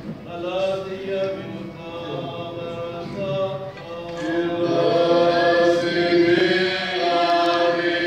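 Orthodox liturgical chant sung by several voices on long, held notes. It swells louder about four and a half seconds in.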